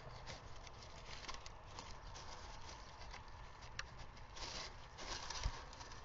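Gray squirrel feeding in a bird feeder's seed tray close to the microphone: seeds shifting and rattling, with small clicks and scratches and a louder knock near the end.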